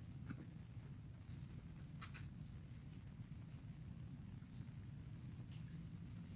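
Forest insects trilling steadily: one high-pitched, rapid and evenly pulsing trill that does not let up, over a low steady rumble, with a couple of faint clicks.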